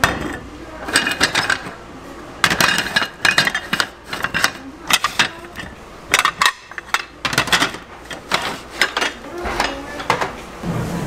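Metal egg-bread baking moulds clattering against each other and the aluminium sheet tray as they are set down and shuffled into rows: a run of sharp clinks and knocks, coming in quick clusters.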